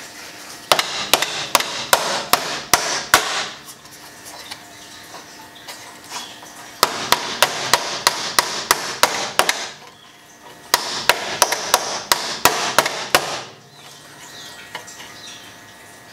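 Hammer blows on the bent front crash bar of a BMW E36, in three runs of quick strikes, about three or four a second, with short pauses between. It is being hammered while the crushed front frame is worked back into shape.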